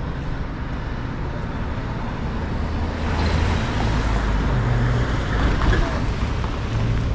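Street traffic and road noise heard from a moving car: a steady low rumble with a hiss of tyres, growing louder about three seconds in.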